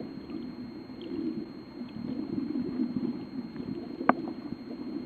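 Water noise, as heard underwater or in an aquarium: a low, surging rush with a faint steady high whine and a small click about four seconds in.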